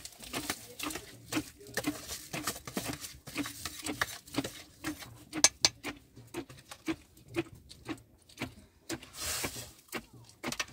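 A run of irregular knocks and taps, about two a second, with one sharper, louder knock about halfway through.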